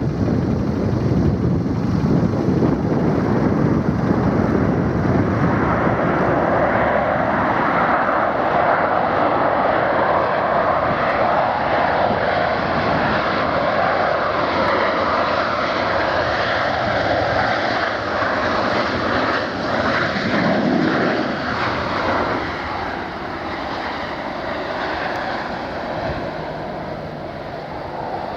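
Jet airliner engines running as the plane passes, a loud steady noise that eases off over the last several seconds.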